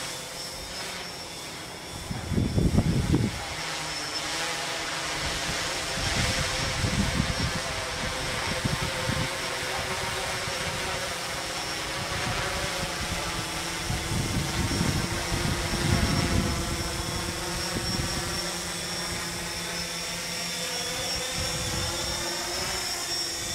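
XAircraft X650 quadcopter's four brushless motors and propellers whirring in a steady hum as it hovers. A few low, gusty rumbles come and go, the loudest about three seconds in.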